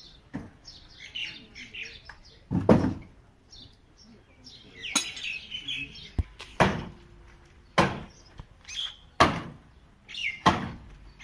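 Six heavy wooden knocks and thuds, irregularly spaced about one to one and a half seconds apart, as timber planks are pulled off a truck's cargo bed and handled on the steel frame. Small birds chirp throughout.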